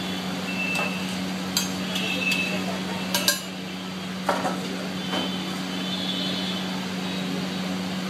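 A metal spatula clinks and scrapes against a wide, shallow metal pan as squid is stir-fried, a handful of sharp clanks over a steady low hum.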